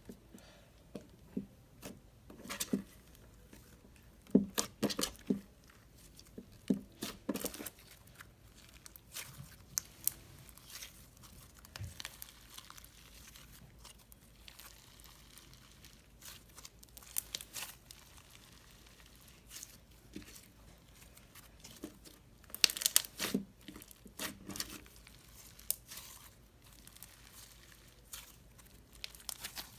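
Clear slime with fishbowl beads and soft clay mixed in, worked by hand: irregular crackling, popping and crunching as it is squeezed and stretched, in bursts that come thicker about 4 to 8 seconds in and again near 23 seconds.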